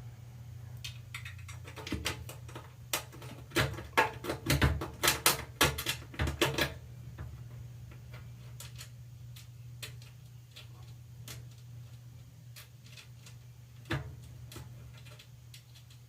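Irregular sharp clicks and knocks of hand tools and metal parts being handled, coming thick and fast for a few seconds in the middle and then only now and then, with one louder knock near the end, over a steady low hum.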